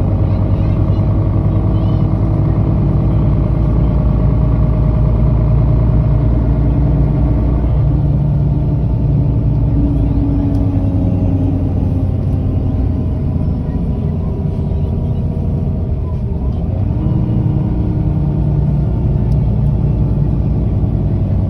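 Mercedes-Benz O530G Citaro articulated bus engine running as the bus drives, its pitch rising and falling with speed and easing off briefly about sixteen seconds in.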